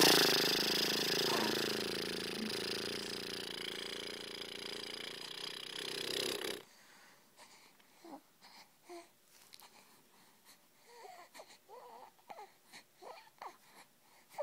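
A loud, wheezy hissing noise starts suddenly, runs for about six and a half seconds and cuts off abruptly. It is followed by a baby's soft, short cooing and babbling sounds.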